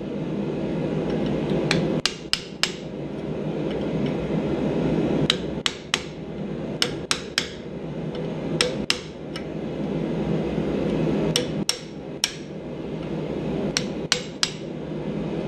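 Hammer blows on a hot chisel cutting into a glowing mild steel bar clamped in a vise. The sharp strikes come in six short groups of three or four, about three a second, with pauses between. A steady low rumble runs underneath.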